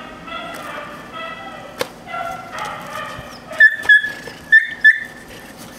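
A dog whining in wavering, high-pitched tones, then giving four short, sharp, high yips in two quick pairs about three and a half seconds in, as it barks on command.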